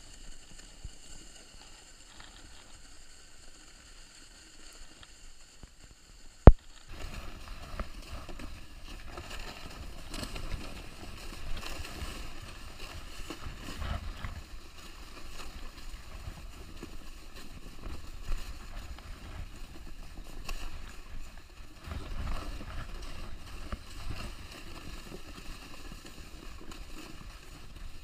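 A sharp click about a quarter of the way in, then a plastic kneeboard being towed through deep snow: a rough, uneven rushing and rumbling that runs on to the end.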